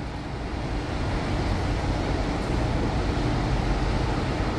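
Mercedes-Benz OF 1721 coach's diesel engine running as the bus moves slowly across a wet apron, a steady low rumble growing gradually louder as it nears.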